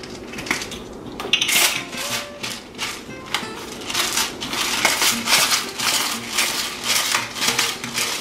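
Hand-twisted pepper mill grinding seasoning into a marinade: a run of short gritty grinding strokes, about three a second, starting about a second and a half in. Background music plays underneath.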